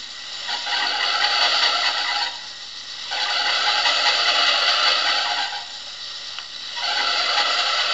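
Recorded squeal of a car engine's slipping fan belt, three long squeals of about two seconds each, played back through a vintage portable record player's speaker. The belt is slipping and needs adjusting or replacing.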